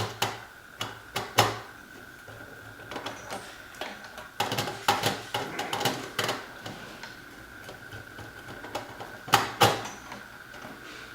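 Small clicks and knocks of wires and a screwdriver being worked into the screw terminals of a Honeywell Vista alarm panel, with a flurry of them in the middle and two sharper knocks near the end.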